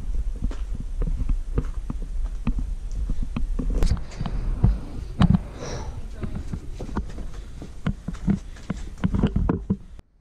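Footsteps and knocks from a handheld camera while walking a trail, over a steady low rumble of wind on the microphone. The sound drops away suddenly near the end.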